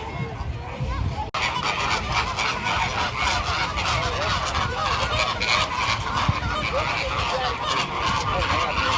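A flock of flamingos calling together: a dense, continuous chorus of overlapping goose-like honks, starting abruptly about a second in.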